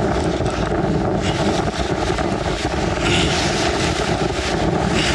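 Strong, steady wind noise rumbling on the microphone at the seashore, with a faint steady hum underneath.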